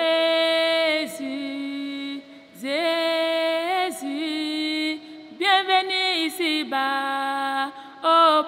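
Background music: a solo woman's voice singing slow, long-held notes in a chant-like style, each phrase sliding into and out of its pitch, with short breaks between phrases.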